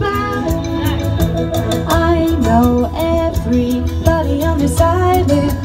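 Pop music with a steady beat played over a sound system, with a woman singing the melody into a microphone.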